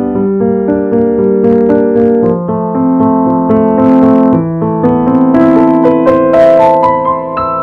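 Solo Yamaha piano playing a slow piece: a repeating low accompaniment figure under a melody that climbs higher in the second half, ending on a held chord near the end.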